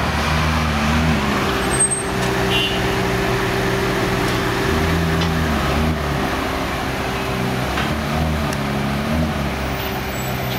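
Ferrari 458 Spider's V8 running at low revs as the car creeps forward, the engine note swelling briefly a few times.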